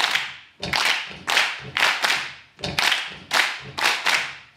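Many hands clapping together in a counted rhythm, the claps falling in a repeating phrase about every two seconds, each clap ringing out in the hall's reverberation.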